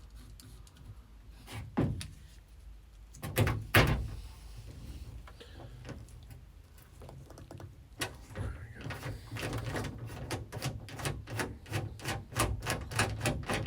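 Clicks and knocks of a hand rivet nut tool and small metal parts while rivet nuts are being set. A few separate knocks come first, then about five seconds of rapid clicking, around four a second.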